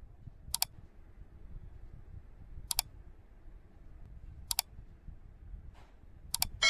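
Four sharp double mouse clicks, about two seconds apart: the click sound effects of an animated like, share and subscribe button overlay.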